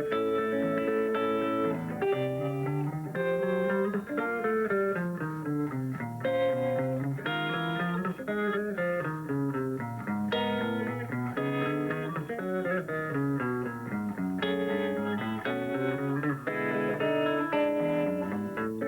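Solo guitar played thumbpicking style: a steady, moving thumb-picked bass line under a plucked melody.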